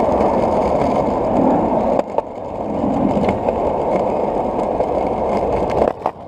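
Skateboard wheels rolling over concrete: a steady rumble. There is a sharp click about two seconds in, and the rolling drops away near the end.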